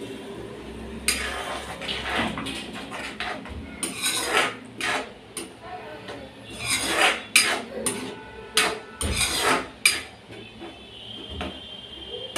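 Steel ladle scraping and clinking irregularly against an aluminium kadai while stirring wet chana dal masala.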